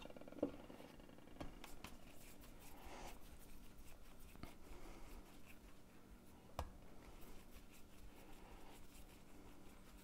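Faint handling sounds of hands kneading a flour-and-water dough: soft rubbing and pressing with a few light taps, the clearest about two-thirds of the way through.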